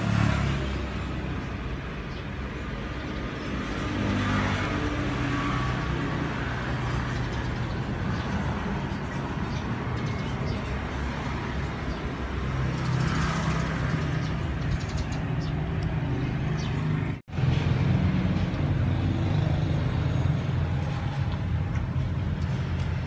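Steady low rumble of road traffic, motor vehicle engines running nearby. It cuts out for a moment about seventeen seconds in.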